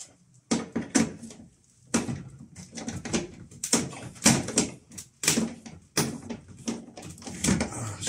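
8 mm socket tool working the metal hinge screws on an LG front-loader's door: a string of short, irregular clicks and knocks of metal on metal, some of them sharp and loud.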